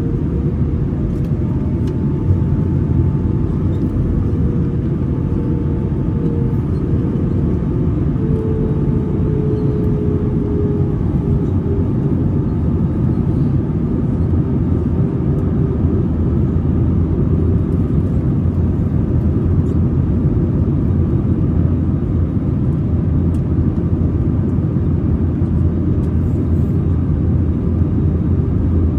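Steady, loud cabin rumble of an Airbus A320 in flight, with its engines and the airflow running together. A faint whine drops slightly in pitch over the first ten seconds.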